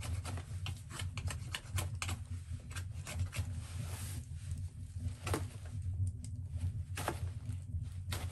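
Irregular sharp clicks and short scrapes of a knife whittling a wooden stick, mixed with the crackle of a wood fire in a stone fireplace.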